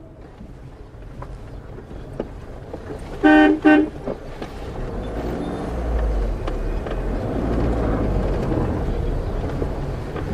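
A vehicle horn gives two short toots in quick succession, followed by the low rumble of road traffic that grows louder.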